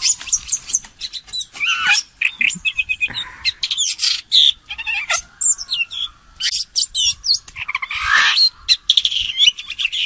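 Red-billed blue magpies calling: a dense, fast string of shrill chirps, whistles and harsh squawks.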